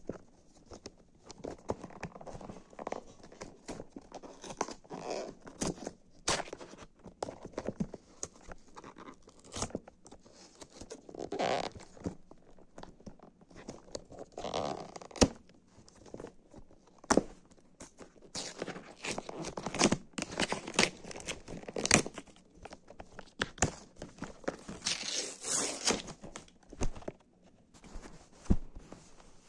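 Cardboard headphone box being handled and opened close to the microphone: irregular scraping, rustling and crinkling, with many sharp clicks and taps; the loudest click comes about halfway through.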